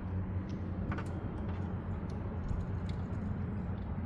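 A few faint, irregular light clicks and taps of metal parts and tools being handled while fitting a belt tensioner, over a steady low hum.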